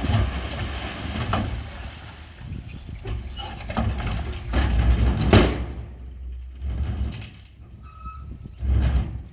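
Bulldozer working: a low engine rumble under surges of grinding and scraping as rocks are pushed, the loudest about five seconds in, easing off after six seconds and swelling once more near the end.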